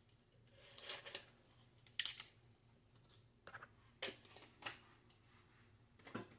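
Scattered light rustles and clicks from handling a glass spice jar of dried leaves: leaves crackling as they are picked out, with the sharpest rustle about two seconds in, then a few light clicks as the jar's cap is put back on.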